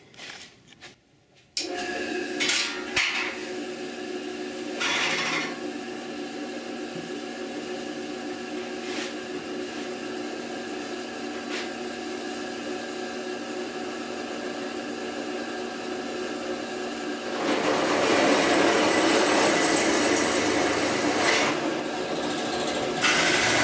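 Floor drill press starting up about a second and a half in and running steadily. About two-thirds of the way through its bit starts cutting into the steel panel, drilling out the pilot holes for the mount holes, and the sound turns louder and rougher. The cutting eases briefly and then bites again near the end.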